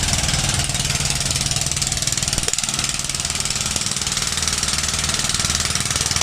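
A small engine running steadily at low speed, with a dense buzzing hiss over a low, even hum.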